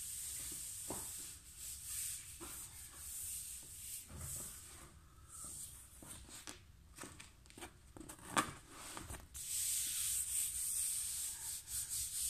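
Hands rubbing and smoothing a laminate sheet down onto contact-glued chipboard to bond it, a steady dry hiss of palm-on-laminate friction. The rubbing stops for a few seconds midway, leaving scattered light knocks and taps, one sharper knock among them, and starts again near the end.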